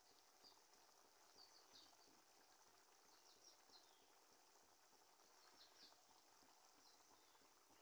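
Faint bubbling of a thick yogurt-and-pea curry simmering in a kadai, with small soft pops. A few faint, short, high chirps come through it, the most about one and a half, three and a half and six seconds in.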